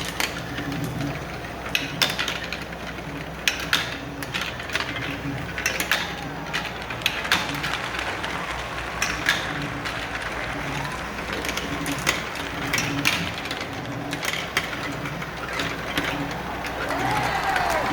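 Irregular clicks and clacks of marbles knocking and rolling on a track, over a steady low background. Near the end a crowd starts cheering and whistling.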